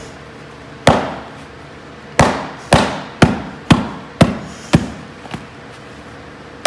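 Rubber mallet beating a hot-water-softened Wilson A2000 leather ball glove: a run of about eight sharp thuds, roughly two a second, the last ones lighter before they stop.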